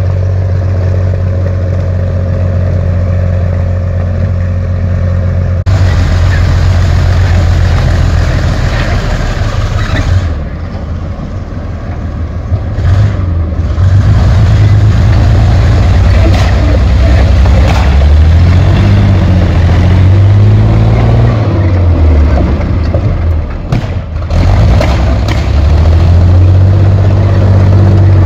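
Heavy tracked armoured vehicle's engine running, with its speed rising and falling repeatedly as it is revved and driven. The sound changes abruptly about six seconds in, and it is quieter for a few seconds around the middle.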